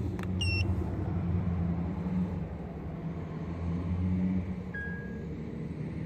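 Acura TL's 3.2-litre V6 running at idle, heard from inside the cabin as a low hum that swells and dips unevenly; the engine has stored misfire codes for cylinders 2, 3 and 5. A short high electronic beep sounds about half a second in, and a fainter one near the five-second mark.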